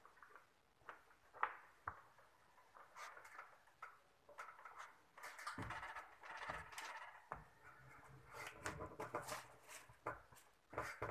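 Faint handling noise: rustling with scattered clicks and light knocks, busier from about five seconds in, with a couple of low thuds.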